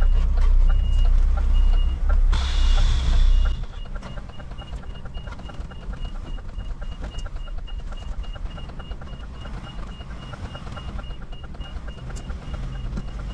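An articulated lorry's reversing alarm beeps steadily over and over, heard from inside the cab, as the lorry backs up. Under it the diesel engine rumbles loudly, then drops much quieter about four seconds in, just after a short burst of hiss.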